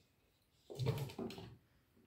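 A cat's paws thudding and scrabbling on wooden stair treads as it leaps up the steps: a short cluster of thumps and scrapes near the middle.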